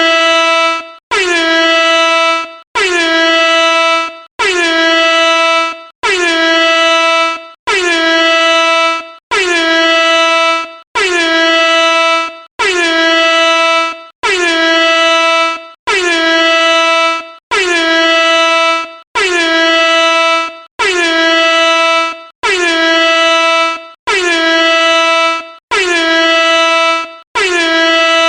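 Air horn sounding loudly in a steady series of blasts, about one every 1.6 seconds, each lasting around a second and a half with a short gap between. Each blast dips slightly in pitch as it starts, then holds one steady note.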